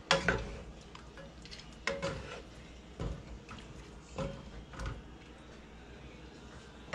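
Wooden spatula stirring a thick chicken curry in a frying pan, knocking against the pan about five times, then going quieter.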